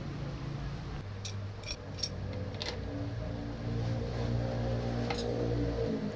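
Small metal parts of a Toyota 5L's VE-type diesel injection pump giving a few light clicks as they are handled and fitted during reassembly, over a steady hum.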